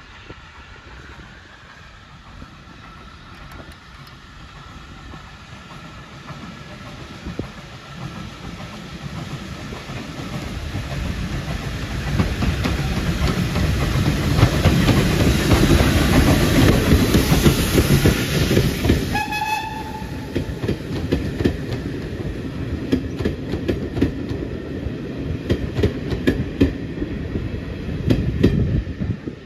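SECR O1 class steam locomotive hauling a train of coaches past at speed, growing louder as it approaches and loudest as the engine goes by. A brief high whistle note sounds about two-thirds through. The coaches then clatter over the rail joints until the train has passed and the sound drops away near the end.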